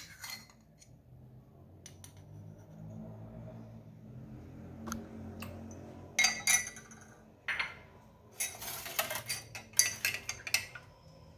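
A metal spoon clinking and tapping against a glass and dish as onion juice is spooned into a glass of water. Scattered single clinks in the first half, then a quick run of clinks in the second half.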